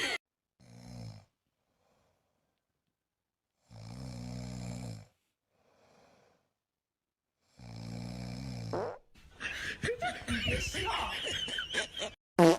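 Snoring: long, low, rasping snores a few seconds apart, three in all. They are followed by a few seconds of busier, irregular sound near the end.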